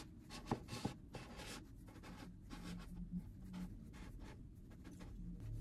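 A long serrated knife sawing horizontally through a chocolate sponge cake, a faint scratchy rasp of repeated back-and-forth strokes, with two light clicks near the start.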